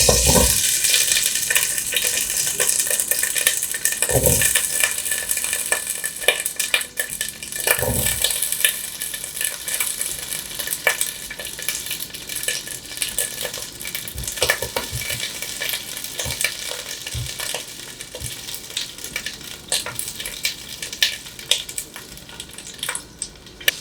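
Wet whole tomatoes dropped into hot avocado oil in a tall pan, sizzling and spitting loudly, with a few thumps as they land and clicks of a utensil against the pan. The sizzle eases off gradually.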